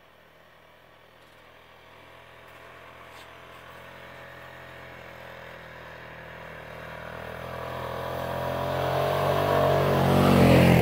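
ATV engine running steadily as the quad approaches from a distance, growing louder throughout and loudest as it passes close by near the end.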